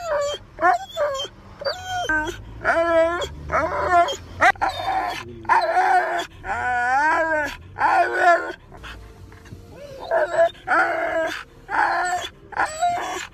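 Siberian husky vocalizing in a string of short howling, yodel-like calls that slide up and down in pitch, the typical husky 'talking'. There is one longer wavering call about halfway through.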